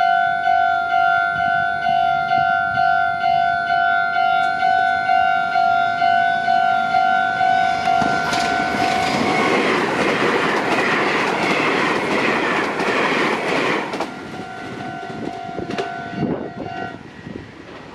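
Japanese level-crossing warning bell ringing in a steady two-tone clang, about two strikes a second. About eight seconds in, a train passes over the crossing and its wheel and rail noise covers the bell for about six seconds. The bell is then heard faintly again and stops near the end.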